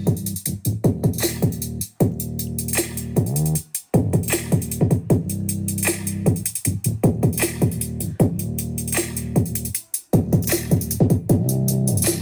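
Background electronic music with a drum-machine beat and steady bass, and quick falling synth notes repeating several times a second. It cuts out briefly three times.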